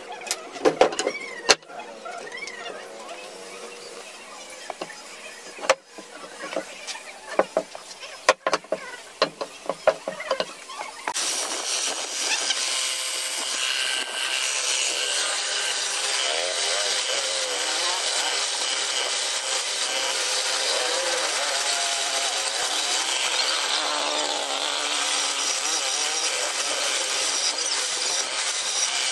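Scattered clicks, taps and short squeaks for about the first ten seconds. Then, starting suddenly, the steady noise of a motor-driven horizontal boring machine with its bit cutting into a pine rail.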